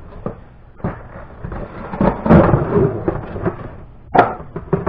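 Handling noise of the boxed toy truck and its packaging: rustling, loudest about two seconds in, with several knocks and a sharp knock a little before the end.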